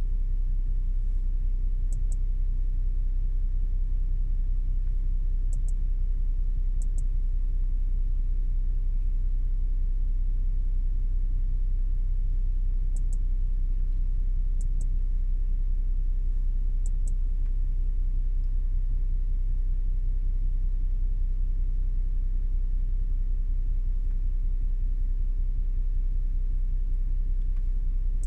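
Steady low rumble of the Audi S7 idling, heard inside the cabin. Several short double clicks from the touchscreen as menu items are tapped.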